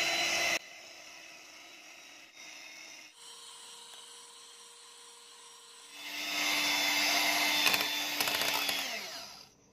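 Electric hand mixer running at high speed, its twin beaters whipping cream in a glass bowl: a steady motor whine. It drops suddenly to a much fainter sound under a second in, comes back loud at about six seconds, then winds down and stops near the end as the cream reaches peaks.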